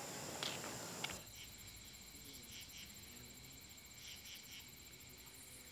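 Faint evening insect chorus: steady high-pitched trilling with short repeated chirps. It is preceded in the first second by outdoor village ambience with a few short sharp clicks.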